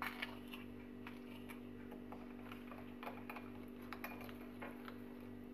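Faint, scattered light clicks and taps of a metal spoon against a ceramic plate and bowl while scooping powdered eggshell and stirring it into juice, over a steady low hum.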